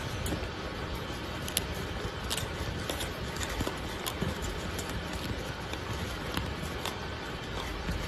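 Irregular light clicks and taps from a small parrot's beak pecking at seeds, over a steady background hiss.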